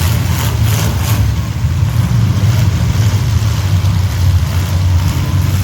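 Demolition derby car engines running loud, a heavy low rumble that stays steady throughout.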